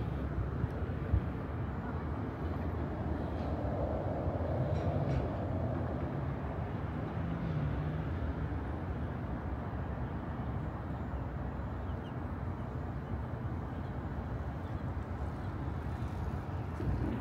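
Steady low rumble of passing vehicle traffic in city street ambience, with a single short knock about a second in.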